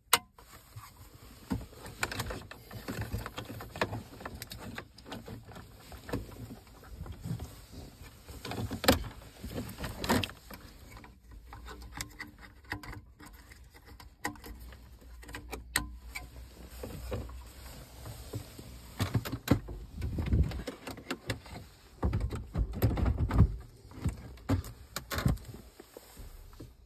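Handling noise of a car head unit being fitted: plastic wiring connectors clicking into the back of the metal-cased RCD330 radio, with irregular knocks and scrapes. Heavier rumbling knocks come about twenty seconds in as the unit is pushed into the dash slot.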